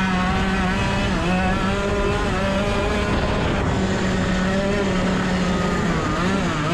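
Racing kart engine running hard at high revs, its pitch held fairly steady along the straight, then wavering and dropping near the end as the kart slows for a corner.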